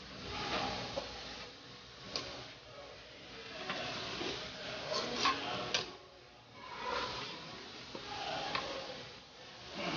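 A metal spatula stirs and tosses pancit canton noodles in a large metal wok, making repeated swishing and scraping strokes. A few sharp clinks of the utensil against the pan come in a cluster about five seconds in.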